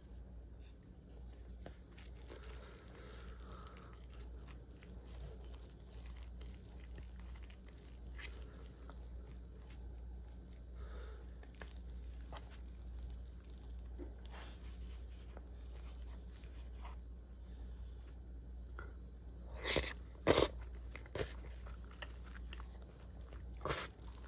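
Wooden spoon stirring sticky natto, raw egg yolk and raw bonito in a plastic bowl: soft wet, sticky squelching with light scraping, and a few sharper knocks against the bowl about twenty seconds in and again near the end.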